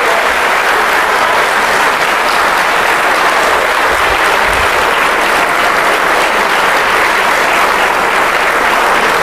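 A large audience applauding steadily, with dense, unbroken clapping.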